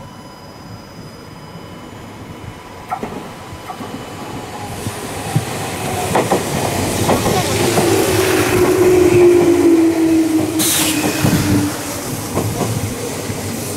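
Meitetsu 6500 series electric train running in beside the platform, its wheels clacking over the rail joints and growing louder as it nears. A whine slides slightly lower for several seconds past the middle, and a brief hiss comes about eleven seconds in.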